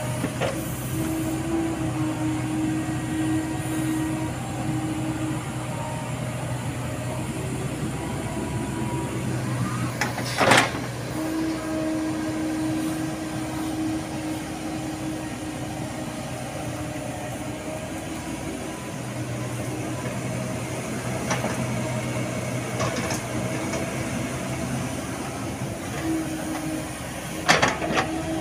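Komatsu PC70 hydraulic excavator running steadily while it digs, with a humming tone that comes and goes as the arm and bucket work. A few sharp knocks, the loudest about ten seconds in and just before the end.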